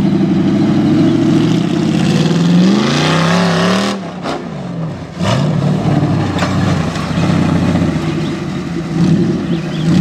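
Off-road buggy's engine running hard and revving as it charges up a steep dirt hill. The pitch climbs from about two seconds in, drops off suddenly around four seconds, then the engine picks up again about a second later and keeps running at high revs.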